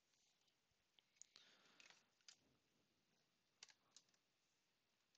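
Faint scattered clicks, about six of them, with a brief rustle of handling between about one and two seconds in.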